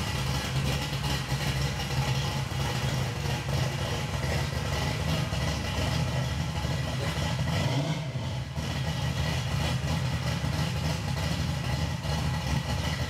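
Fuel-injected 355-cubic-inch V8 of a restored 1949 GMC 100 pickup idling steadily, with a brief dip in its sound about eight seconds in.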